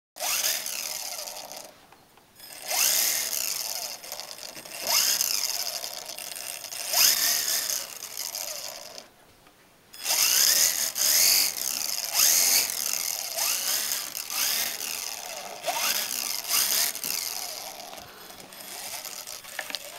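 Esky HoneyBee CP2 radio-controlled helicopter's small electric motors whining as the rotors spin, the pitch sweeping up again and again as the motors rev. The whine cuts out twice for a moment.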